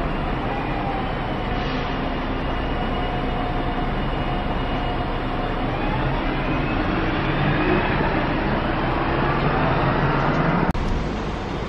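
Steady rumble of diesel buses running at the busway beside a railway platform, one engine's pitch rising past the middle. After a sudden cut near the end, the Tilt Train comes into the platform.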